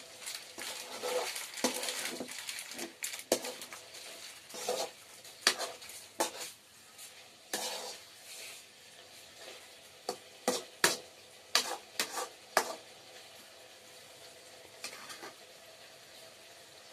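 Metal slotted spoon scraping and clanking against an aluminium karahi as potato and cauliflower are stir-fried, over a faint sizzle. The clanks come thick at first, end in a quick run about three-quarters of the way through, and then stop.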